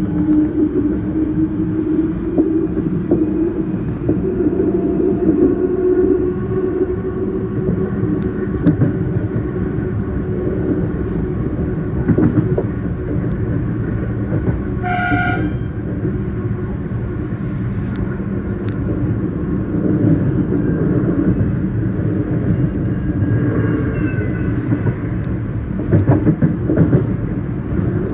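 Melbourne Metro suburban electric train running with a steady low rumble, and a short horn blast about halfway through.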